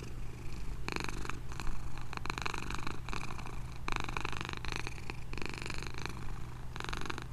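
Kurilian Bobtail cat purring, the purr swelling with each breath about every second and a half.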